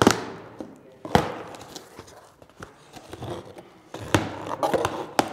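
Cardboard box being cut open with a large kitchen knife: the blade slicing and tearing through packing tape and cardboard flaps, with sharp cuts right at the start, about a second in, about four seconds in and near the end.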